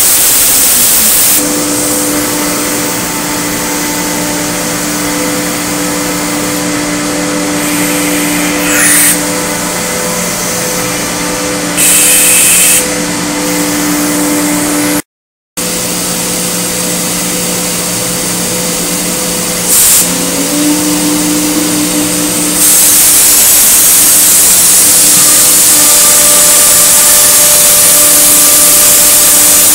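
Multicam MG205 CNC router with a 15 HP spindle running: steady humming tones under a loud hiss. The hiss eases off after about a second and a half, swells in short loud spells twice, and comes back loud near the end. The sound cuts out completely for half a second about halfway through.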